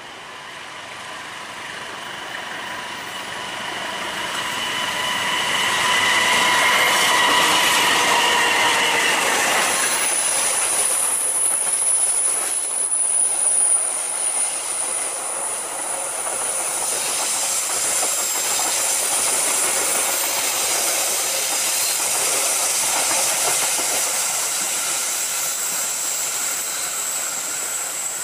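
A diesel-hauled passenger train passes on a sharp curve. It grows louder to a peak as the locomotive goes by, then the coaches' wheels clatter over the rail joints with a high-pitched squeal from the wheels on the curve.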